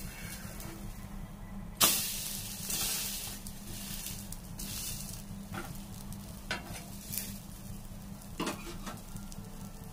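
Bread omelette sizzling in oil on a tawa; it is flipped with a flat spatula about two seconds in, setting off a sudden loud burst of sizzling that dies back down. A few sharp taps and scrapes of the spatula against the pan follow later.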